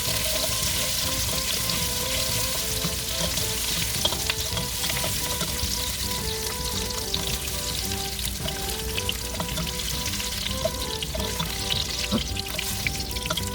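Chopped bell peppers sizzling steadily as they are lightly fried in a little vegetable oil in a pan, with occasional light clicks. Soft instrumental music plays underneath.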